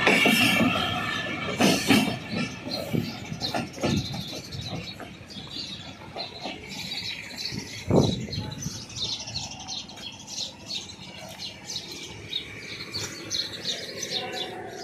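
Birds chirping in open country, while a train's rumble fades away over the first few seconds. A few sharp knocks come through, the clearest about eight seconds in.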